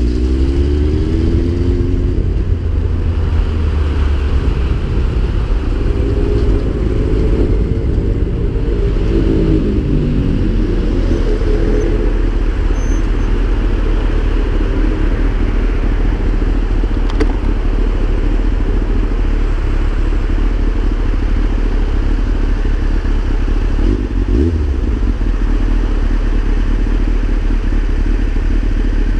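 Yamaha FZS1000's inline-four engine accelerating, its note rising as the bike pulls away and picks up speed, then running steadily at cruising speed. Heavy wind noise on the microphone.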